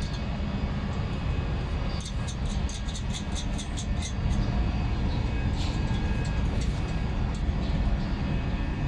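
Steady low rumble of running machinery, with a quick run of light clicks about two to four seconds in.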